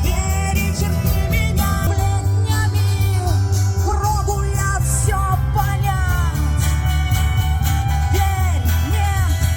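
Music: a song with singing over a heavy bass line and a steady drum beat.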